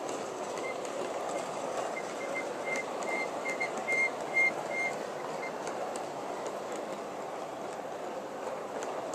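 G scale model train hopper cars rolling past on track, a steady rumble of plastic-and-metal wheels with faint clicks at the rail joints. A string of short high squeaks comes in about a second in and fades out a little past the middle, loudest around four seconds.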